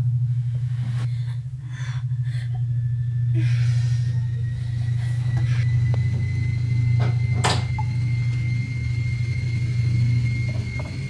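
Film-score sound design: a low, steady rumbling drone with a thin high tone that slowly rises and then holds, and one sharp hit about seven and a half seconds in.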